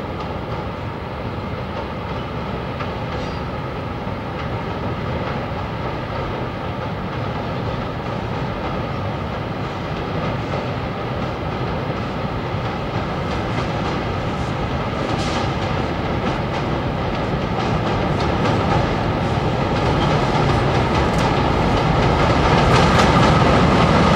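MLW MX636 diesel-electric locomotive's turbocharged V16 engine running as it hauls a freight train, with wheels clattering on the rails. The sound grows steadily louder as the locomotive draws near.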